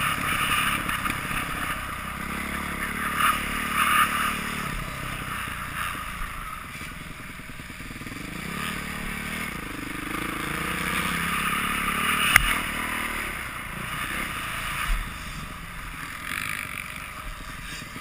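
Dirt bike engine revving up and down as it rides a motocross track, heard from a camera on board, with a single sharp knock about two-thirds of the way through.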